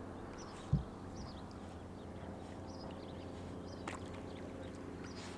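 Steady low drone of distant truck and roadworks engines, with faint small-bird chirps scattered through it and one low thump about a second in.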